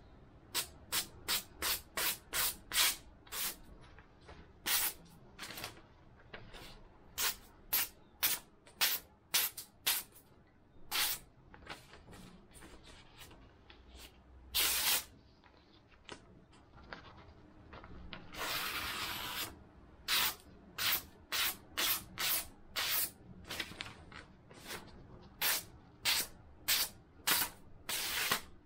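Freshly sharpened KAI kitchen knife slicing through a hand-held sheet of paper: a run of many short, hissing cuts, with two longer drawn-out slices about halfway through. The clean slicing is the paper test of the new edge.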